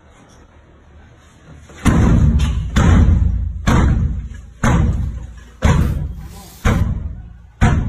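Handheld battering ram pounding a door, about one heavy blow a second. It starts about two seconds in and makes around seven strikes, each ringing on briefly in the stairwell.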